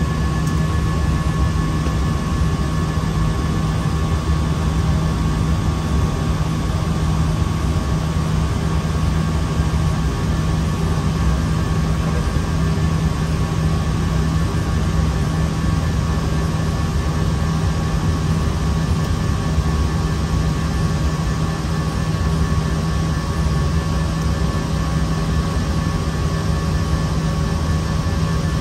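Steady flight-deck noise of an Airbus A320: an unbroken rush of air with a constant low hum and a couple of faint steady high tones.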